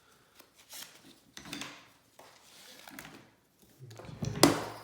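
Rifle sling and its hardware being handled and its end taken apart: soft rustles and small clicks, then a sharp knock about four and a half seconds in.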